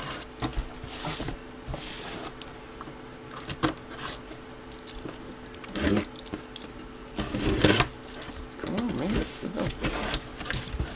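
A box being opened by hand: irregular scraping, tearing and crinkling of cardboard and plastic wrap, over a faint steady hum.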